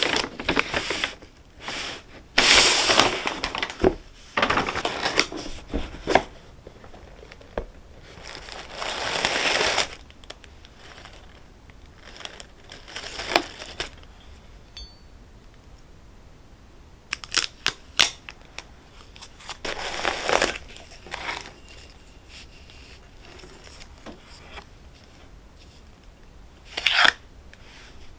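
Paper packaging rustling and crinkling in bursts as a paper shopping bag and crumpled packing paper are handled, with a few short sharp taps later on as ceramic mugs are lifted out of the box.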